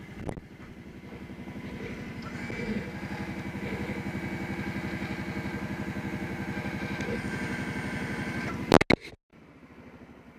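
ATV engine running steadily at idle, growing louder over the first couple of seconds and then holding even. A few sharp knocks come near the end, after which the sound cuts out.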